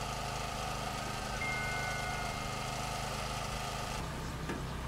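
Steady hum of a riverboat's diesel engine, with a brief thin high tone just over a second in. Near the end the sound changes to the boat under way on the river.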